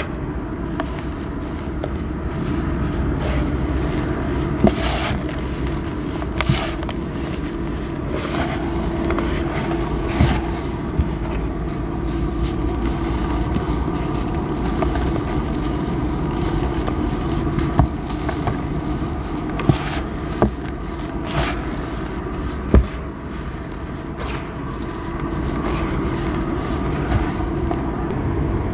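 Hands crumbling and squeezing dry cement powder and breaking a molded cement block, giving gritty crumbling with a few sharp crunches scattered through. A steady low hum runs underneath.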